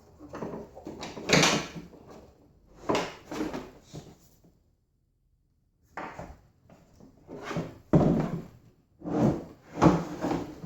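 Irregular knocks, clatter and scrapes of a Yamaha YPG-525 keyboard's casing and parts being handled and worked loose during disassembly, with a silent gap midway.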